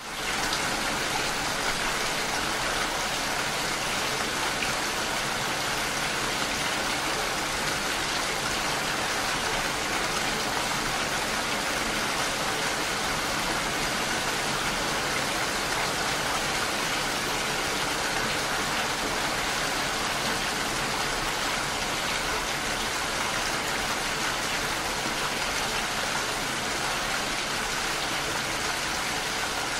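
Steady rain falling, an even hiss with no breaks, rising in quickly out of silence at the very start.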